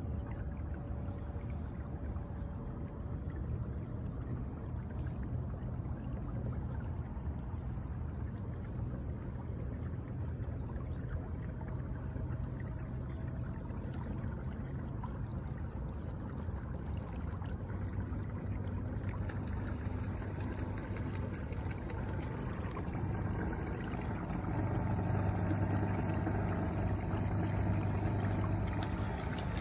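Watersnake electric trolling motor pushing a kayak: a steady low hum under water rushing and splashing along the hull. The hum steps in pitch a few times as the speed is changed, and it grows louder near the end.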